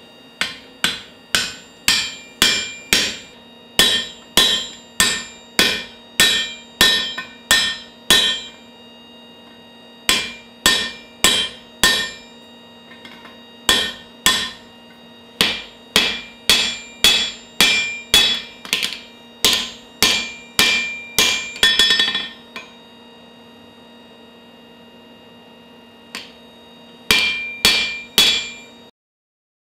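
Blacksmith's hand hammer striking hot steel on an anvil, forging an axe head's socket and driving a drift into it. The blows come in runs of about two a second, each with a short metallic ring, broken by pauses.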